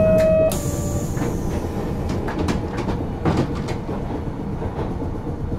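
Inside a 1950 Nippon Sharyo-built Nagasaki Electric Tramway Series 202 tram with Mitsubishi resistor control: a steady buzzer-like tone cuts off about half a second in, followed by a brief hiss. Then comes the tram's running rumble with scattered clicks from the wheels on the rails.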